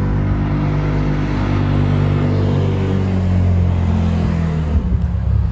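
A motor vehicle passing by on a busy road, its engine note sliding down in pitch as it goes past and dying away near the end.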